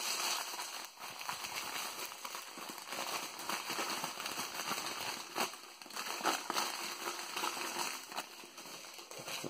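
Newspaper packing crinkling and crackling as hands pull wrapped bundles from a cardboard box and unwrap them, with irregular sharp crackles throughout.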